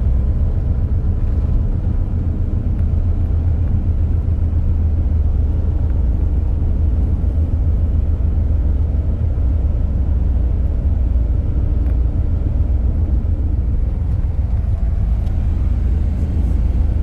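Steady low rumble of a moving road vehicle, engine and road noise, with no change.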